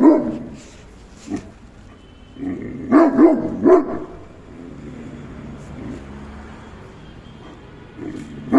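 Great Dane barking in short runs: one bark right at the start, a quick run of three barks about three seconds in, and another run beginning near the end.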